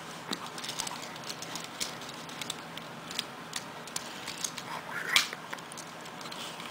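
Small plastic Transformers toy being transformed by hand: irregular light clicks and snaps of plastic parts being turned and pressed into place, with one louder snap about five seconds in.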